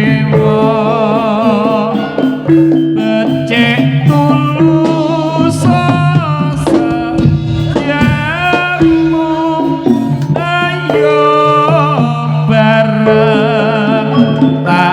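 Javanese jaranan senterewe music played loud without a break: drums under held tones and a melody line that wavers in pitch.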